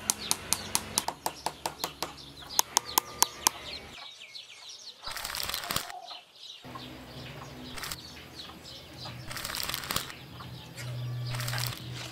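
Small wooden sticks and a toy picket fence being handled and set into sand: a run of sharp wooden clicks, about three a second, for the first few seconds, then a few short bursts of scraping and rustling.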